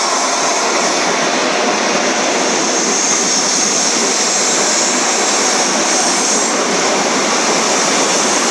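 Electric commuter train of the Sintra line passing on the tracks below, a steady loud rushing of wheels on rail with a hissing high edge.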